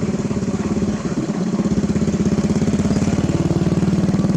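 Heavy diesel engine of a construction machine running with a fast, even pulse. It eases for a moment about a second in, then picks up and runs harder.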